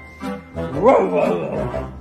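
A puppy gives one short vocal call about halfway through, rising then falling in pitch, over background music.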